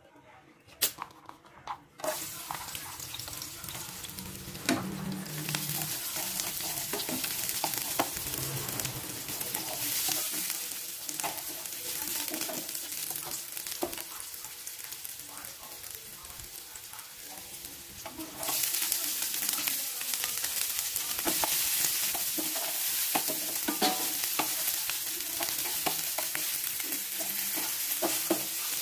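Sliced shallots and garlic sizzling in hot oil in a non-stick frying pan, with a wooden spatula clicking and scraping as they are stirred. The sizzle starts about two seconds in and turns louder about two-thirds of the way through, as sliced red and green chillies go into the pan.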